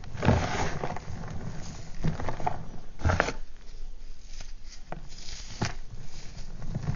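Gym chalk block pieces crunched and crumbled between the fingers, with dry powder sifting and trickling down into the pile. The crunches come irregularly, about one every second, the strongest near the start and about three seconds in.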